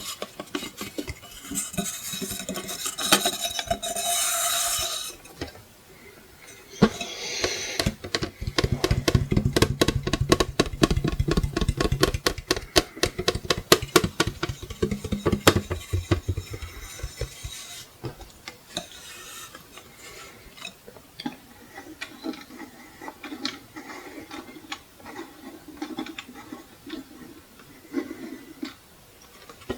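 Tapping and scratching on a wall clock's metal and plastic parts: quick runs of sharp taps, densest in the middle, with stretches of scratchy rubbing near the start.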